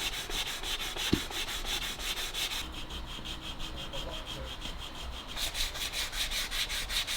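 120-grit sandpaper rubbed by hand over hardened body filler in quick back-and-forth strokes, about five a second, lighter for a couple of seconds mid-way. The filler is being flatted and feathered out.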